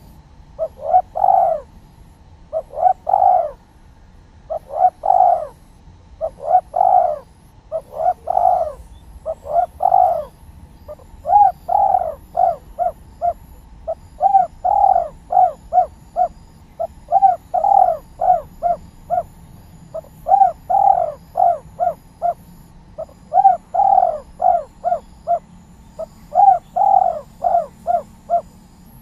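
Spotted dove (tekukur) cooing persistently in the song type called 'kuk 3'. Each phrase is a quick run of several short coos, and a new phrase comes roughly every two seconds.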